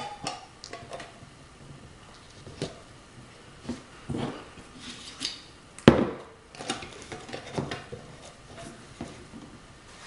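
Metal mason jar lid being set on a glass jar and screwed down by gloved hands, sealing in the just-boiled water: scattered clinks and knocks, with one sharper knock about six seconds in.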